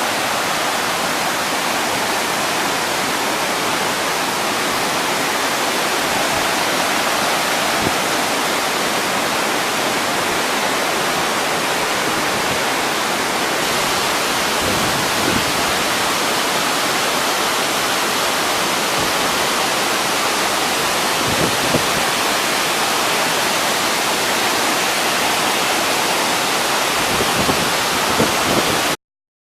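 Waterfall pouring, a dense, steady rush of water that cuts off suddenly near the end.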